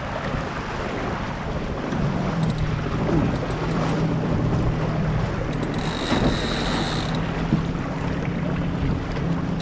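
Wind buffeting the microphone and water washing along the hull aboard an Impulse 26 sailboat under way, with a steady low hum underneath. A brief high-pitched tone sounds about six seconds in.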